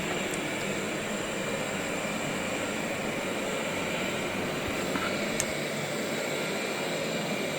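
Roborock S7 robot vacuum running while it cleans: a steady whir with a faint high whine, and a light tick about five seconds in.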